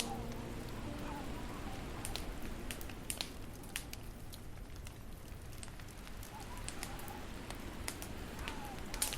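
Wood fire in a fireplace crackling, with scattered sharp pops and snaps over a steady hiss. The last piano notes fade out in the first second.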